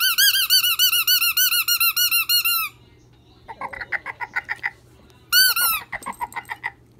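A husky chewing a Kong rubber squeaky ball, squeezing out rapid runs of sharp, high squeaks at about five a second. There are three runs: a loud one at the start, a softer and lower one in the middle, and another loud one near the end.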